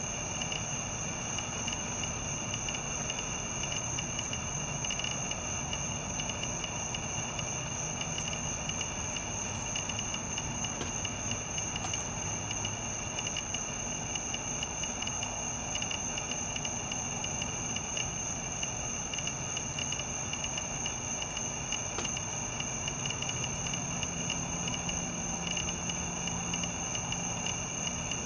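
Steady high-pitched insect chorus, like crickets trilling without pause, over a low background hiss.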